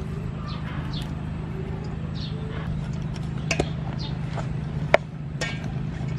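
A wooden paddle tossing shredded vegetables in a stainless-steel bowl, with two sharp knocks of paddle on bowl about 3.5 and 5 seconds in, the second the loudest. A steady low hum runs underneath, with short high chirps about once a second.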